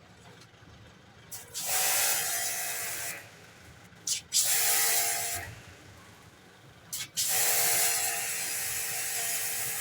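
Pressure washer jet spraying a bicycle chain in three bursts, each starting with a short click as the trigger is pulled, with a steady hum under the hiss of the water; the last burst is the longest.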